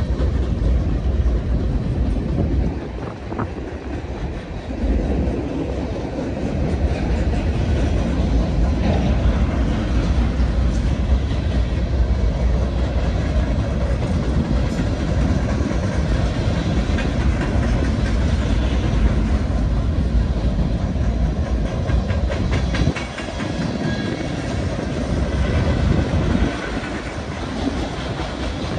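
Union Pacific manifest freight train's boxcars and empty center-beam lumber flatcars rolling past: a steady rumble of steel wheels on rail with clicks from the wheels.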